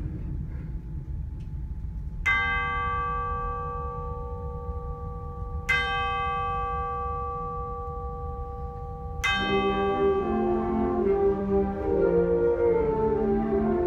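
Tubular bells (orchestral chimes) struck three times, about three and a half seconds apart, each stroke left ringing. With the third stroke the concert band's winds come in softly with held low notes.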